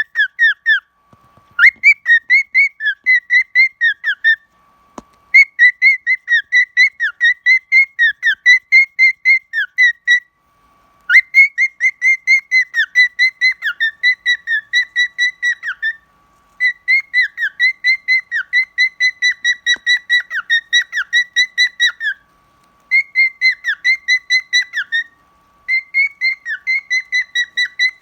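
Cockatiel whistling its song: fast runs of short, warbling whistled notes, about four to five a second, in phrases of a few seconds with short pauses between.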